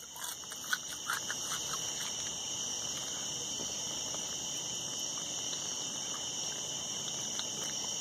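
A steady insect chorus: a continuous high shrill at two pitches that holds without a break. A few faint clicks come in the first couple of seconds.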